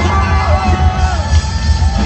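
Live rock band playing loud: electric guitars, bass and a heavy drum beat, with a voice singing over it.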